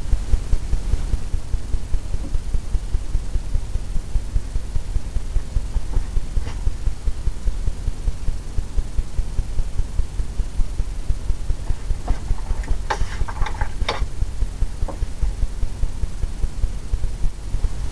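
A paintbrush working oil paint on a stretched canvas in quick repeated strokes, heard as a low pulsing rub about three or four times a second. A few sharper clicks come about two-thirds of the way in.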